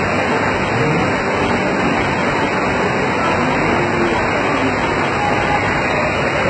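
Steady, loud rushing noise without clear events, with faint voices showing through now and then.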